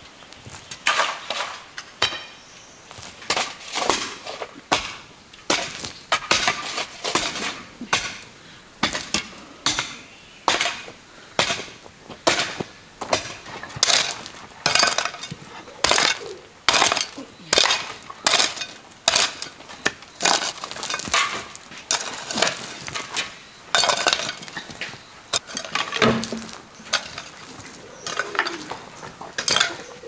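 Metal hoe blades chopping into stony soil over and over, a sharp strike with a clink of metal on stone about one and a half times a second, the irregular rhythm of two people hoeing.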